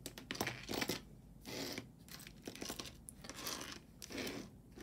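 Faint handling noise from costume jewelry being picked over: several short spells of soft rustling and crinkling with a few small clicks.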